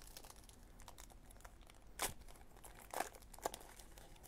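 Faint crinkling and tearing of a trading card pack wrapper being opened, with three short, louder rustles about two, three and three and a half seconds in.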